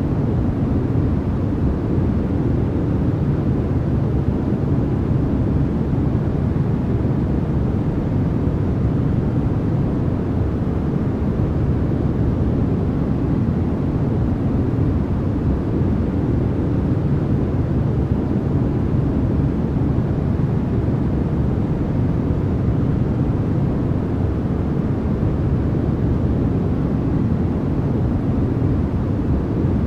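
Steady, unchanging synthetic noise played for sleep masking, deep and dull rather than bright, with most of its weight in the low end and little treble.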